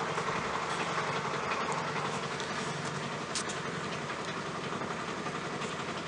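Mother cat purring steadily, a low continuous rumble, while she lies with her newborn kittens.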